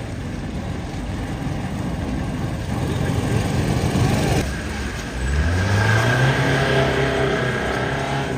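Motor vehicle engine running close by, revving up about five seconds in, its pitch rising and then holding steady.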